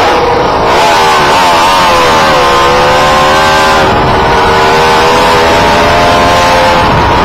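Car driving in tight circles, heard from inside: a loud, steady run of motor and road noise with a wavering tone that dips and rises in pitch, then holds level for the second half.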